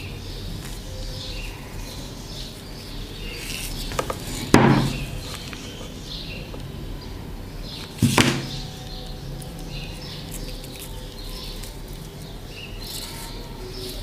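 Crafting handling noise at a table: two sharp knocks, about four and a half and eight seconds in, from the hot glue gun and craft pieces being handled, over faint bird chirps in the background.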